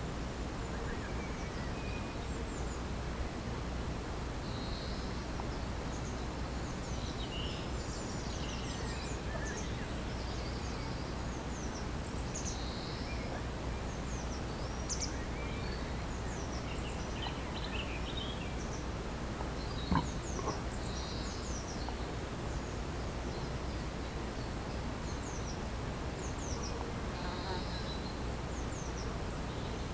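Bees buzzing in a garden while small birds chirp and twitter in short, high calls on and off. A single sharp click comes about twenty seconds in.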